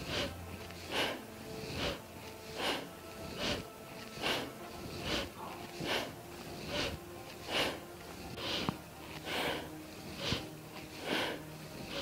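Rhythmic forceful breathing through the nose, a sharp breath about every second, evenly paced as in a Kundalini yoga breathing exercise. Faint sustained music tones underneath.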